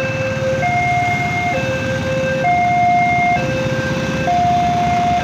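Indonesian railway level-crossing warning alarm sounding a steady high-low two-tone, each tone held just under a second, signalling that a train is approaching. Beneath it runs the low rumble of queued motorcycle engines idling.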